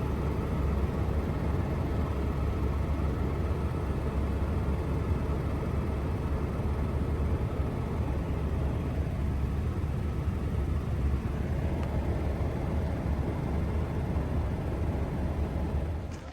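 Steady low rumble and rushing noise of an aircraft in flight, fading away near the end.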